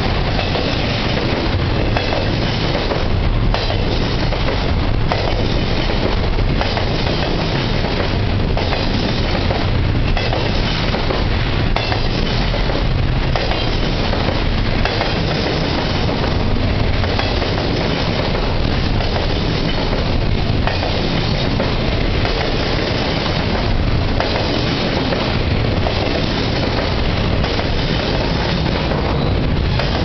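Intermodal freight train of double-stack container cars and trailer flatcars rolling past close by: a loud, steady rumble and rush of steel wheels on rail, with knocks every second or two as wheel sets pass.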